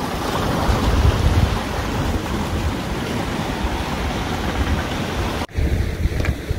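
Wind buffeting the microphone over the wash of waves on a rocky shore. The sound cuts out for an instant about five and a half seconds in.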